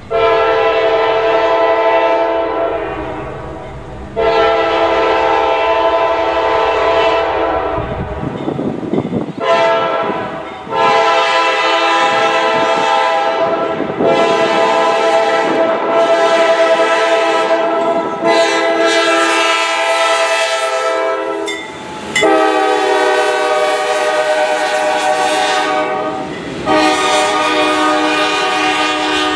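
A CSX diesel locomotive's multi-chime air horn sounds a long series of blasts for a grade crossing, most of them three to four seconds long with one short blast about ten seconds in.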